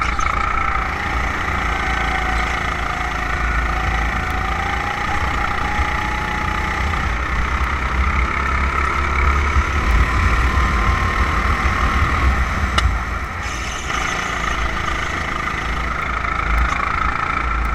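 270cc kart's single-cylinder four-stroke engine running through the corners of a lap, its note rising and falling slowly with speed and dipping briefly about thirteen seconds in, with heavy wind rumble on the onboard microphone.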